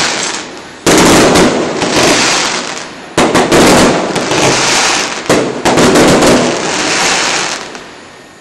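Aerial firework shells bursting: sudden loud bangs about a second in, at about three seconds, and twice close together at about five and a half seconds, each trailing off over a second or two. The bangs fade away near the end.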